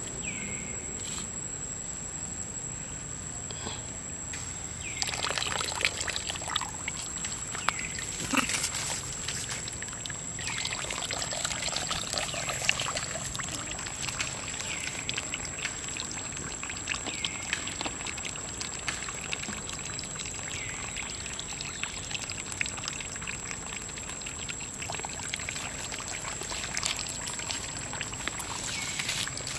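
Water running from a small PVC standpipe tap and splashing into a puddle. A steady high-pitched whine runs underneath, and short high calls come every few seconds.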